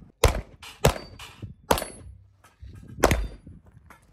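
Four rifle shots: three in quick succession in the first two seconds, then one more about three seconds in. Lighter metallic clangs of steel targets being hit come between them.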